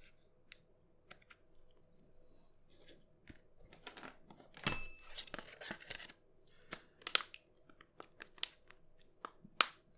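Small plastic clicks, taps and crinkling from the PinePhone's battery being fitted into the opened phone, with a sharp click near the end the loudest.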